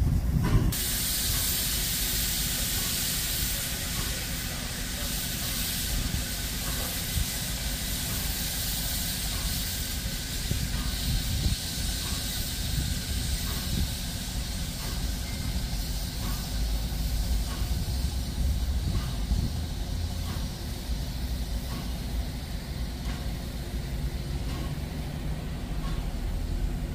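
Pt47 steam locomotive standing at a station, letting off steam with a steady hiss that starts abruptly about a second in, over a low rumble.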